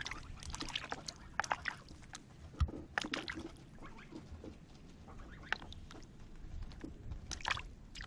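A goose's bill striking into a plastic basin of water holding live crucian carp: irregular splashes and sloshes as it jabs at the fish.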